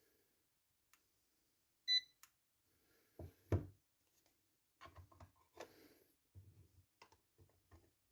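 A single short, high beep from a Maxwell MP-25703 digital multimeter about two seconds in, followed by a series of knocks and clicks, the loudest a thump about a second and a half later.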